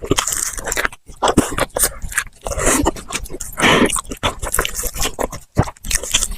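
Close-miked eating: crunching and chewing of crispy fried food, with rapid crackly clicks and wet mouth sounds, and a longer, denser chew a little past halfway.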